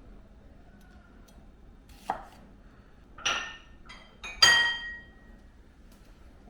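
Kitchenware being knocked three times, each knock leaving a short ringing tone, the third the loudest.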